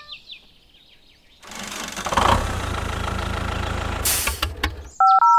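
Tractor engine starting and running with a low, pulsing rumble for about three seconds, with a short hiss near its end. A quick run of two-tone electronic beeps follows near the end.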